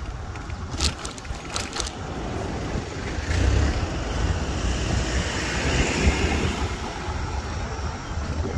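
Road noise heard from a moving e-bike: a steady low rumble of wind on the microphone under a broad traffic hiss that swells in the middle. A few sharp clicks come about a second in.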